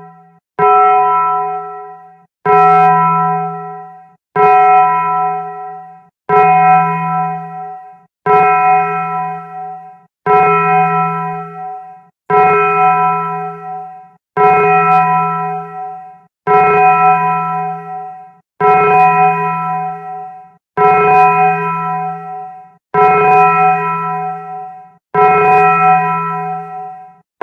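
A deep bell bong, the meme sound effect, struck over and over about every two seconds. Each strike rings with a low hum and many higher overtones and fades, then is cut off abruptly by the next.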